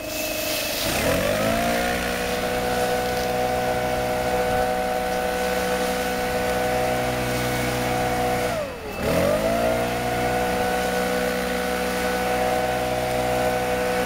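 STIHL BR 600 backpack leaf blower, its four-stroke engine revving up to full throttle and held there, steady and loud. About eight and a half seconds in the throttle is let off and the pitch drops, then it revs up again. Near the end the throttle is released once more.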